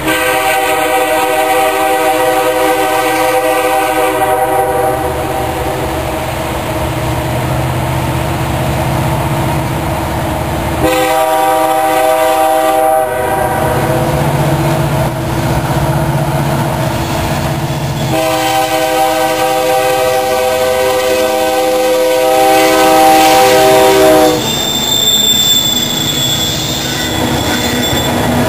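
Diesel freight locomotive sounding its horn three times: a long blast, a shorter one, then another long blast, over the rumble of the approaching engine. Near the end the horn stops and the locomotive and its cars rumble past.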